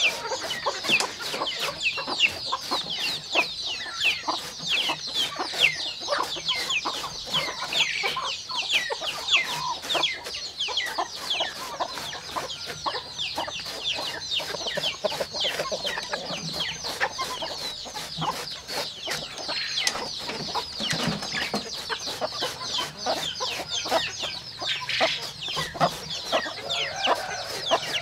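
A flock of chickens clucking constantly, with many short, high, falling calls overlapping, mixed with sharp knocks of a machete slicing through a banana stem onto a wooden block.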